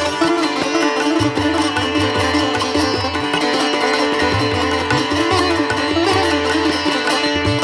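Instrumental music: a wavering melody over a steady drone, with a low pulsing beat underneath.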